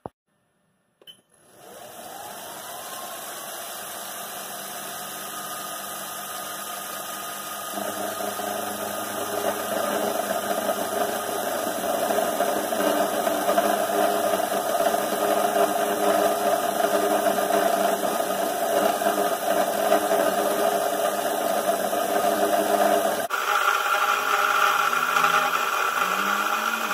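Homemade CNC mill's belt-driven spindle spinning up about a second in, its pitch rising and then settling into a steady run. From about eight seconds in the sound grows louder as an 8 mm end mill cuts 6061 aluminium. The sound changes abruptly near the end.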